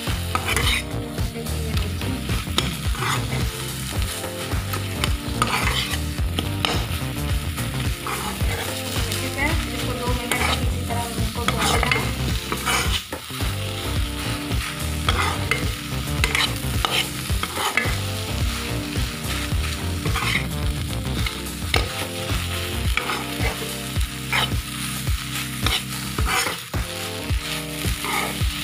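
A steel spoon scraping and stirring egg bhurji around a hot pan in repeated strokes, over the steady sizzle of the eggs, onion and tomato frying.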